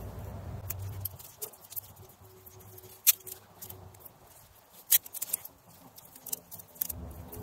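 Grafting tape being wrapped around a fresh graft: quiet handling rustles with a few sharp clicks, the clearest about three seconds in and again about five seconds in.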